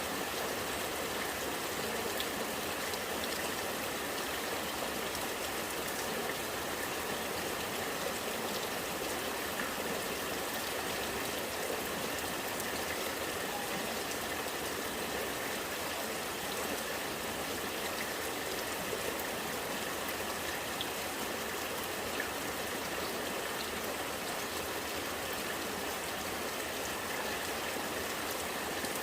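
Rainwater running and gurgling steadily, with faint drip ticks scattered through it.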